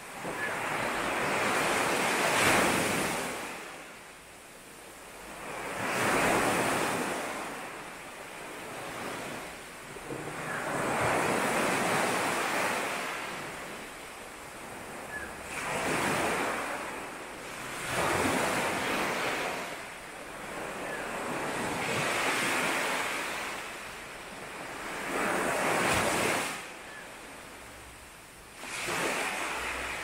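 Sea waves breaking on a shore, one after another every three to five seconds, each a rush of surf that swells and then fades away.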